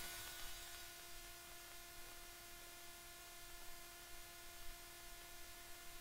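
Faint, steady electrical hum from an aircraft's headset intercom feed, with a few fixed tones over a light hiss.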